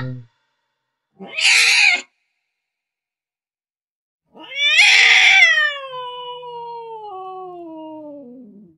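Domestic cat meowing angrily: a short harsh call about a second in, then one long yowl that rises, then slides slowly down in pitch as it fades over about four seconds.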